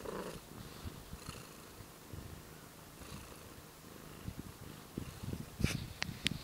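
Tortoiseshell cat purring close to the microphone, a low steady flutter, with a brief louder vocal sound at the very start. A few sharp clicks and rustles sound near the end.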